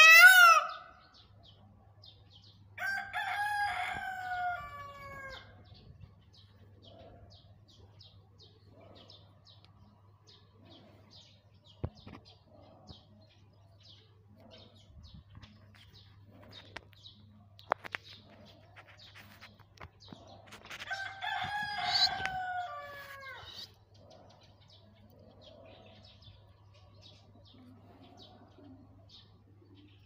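Male Indian peafowl calling: a loud wailing call ends just after the start, then a run of shorter falling calls comes about three seconds in and again about twenty-one seconds in. Between the calls there are faint, regular high chirps.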